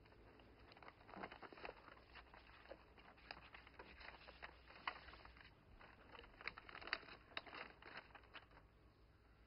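Faint paper rustling and crinkling as a large paper envelope is handled, in scattered soft clicks and rustles.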